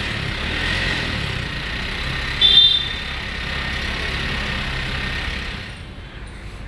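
Street traffic noise from passing vehicles, with a short horn toot about two and a half seconds in; the traffic noise eases off near the end.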